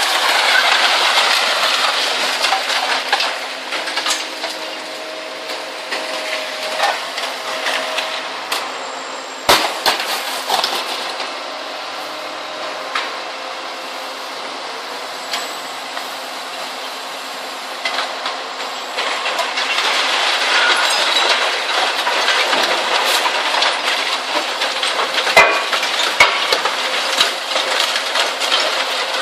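Zato Blue Devil twin-shaft shear shredder crunching scrap steel, a steady clatter of clanks and knocks from metal pieces, with one sharp bang about nine seconds in. It grows louder again about two-thirds of the way through.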